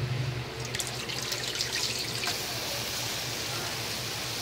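Ground pork cooking in a little water in a wok, the water being boiled off: a scatter of small pops over the first couple of seconds settles into a steady bubbling hiss.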